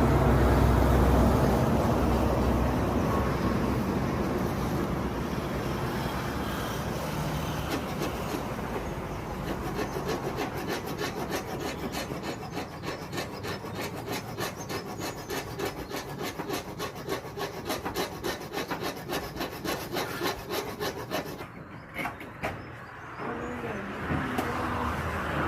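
A low rumble fading away, then steady hand-sawing of wood: quick, even back-and-forth saw strokes, about four or five a second, that stop about three-quarters of the way through.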